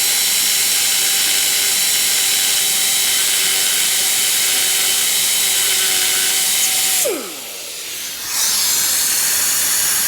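Die grinder running at full speed, a steady high whine over a hiss, as it cuts a small scallop out of a metal face on the motorcycle. About seven seconds in the whine drops away as the grinder spins down, and about a second later a hiss starts up again and rises in pitch.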